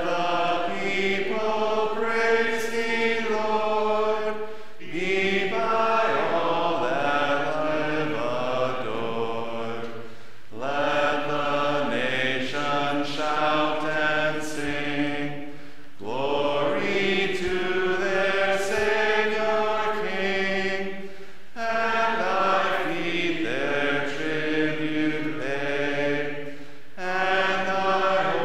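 A congregation singing a hymn a cappella, with no organ or other accompaniment. The hymn goes line by line, each line about five seconds long with a short breath between lines.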